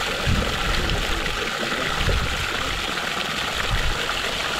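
Water and catfish fingerlings pouring from a tipped plastic drum into a shallow muddy pond: a steady splashing gush.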